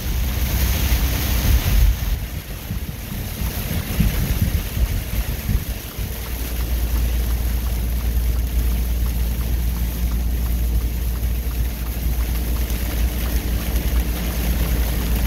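Inside a semi-truck's cab at highway speed: a steady low drone of engine and tyres under a hiss of rain and road spray, the hiss strongest in the first two seconds, with a few low bumps between about two and six seconds in.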